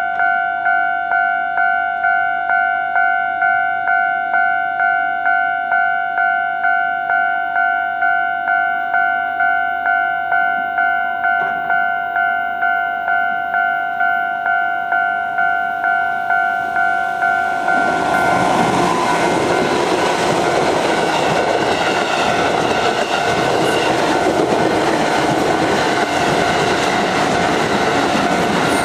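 Japanese level crossing warning bell ringing steadily, about two strokes a second. About eighteen seconds in, a train arrives and runs past over the crossing, and its loud wheel and rail noise largely drowns the bell.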